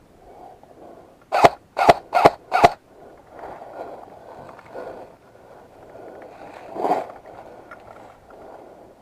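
Airsoft gun firing four sharp shots in quick succession, about two and a half a second, followed a few seconds later by a duller single knock.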